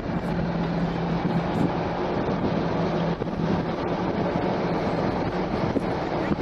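Inside a moving car: steady road and engine noise, with a low hum that weakens about halfway through.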